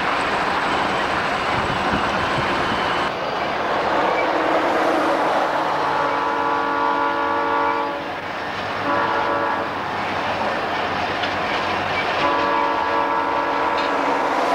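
Southern Pacific diesel freight locomotive's air horn sounding a multi-note chord in three blasts: one of about two seconds, a short one, then a long one beginning near the end. Under it is steady road and wind noise from a car driving alongside the train.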